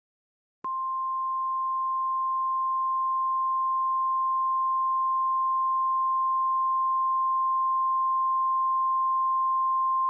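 NOAA Weather Radio 1050 Hz warning alarm tone, software-generated: one steady pure tone that starts about half a second in. It is the alert signal that follows the data header of an immediate evacuation warning and comes before the spoken message.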